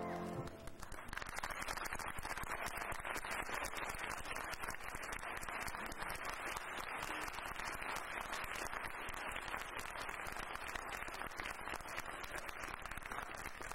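Audience applauding steadily, starting about half a second in as the last notes of the song die away.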